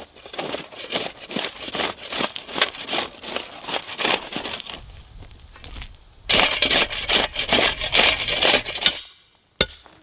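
Steel shovel scraping and scooping gravelly soil along the bottom of a footing trench, a dense crunching and grating of stones against the blade. It gets louder for the last few seconds and then stops, followed by a couple of sharp clicks near the end.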